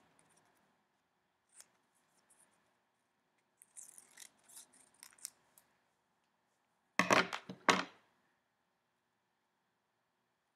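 Scissors cutting out a small paper shape: a scatter of quiet snips, then three louder sharp clacks about seven seconds in.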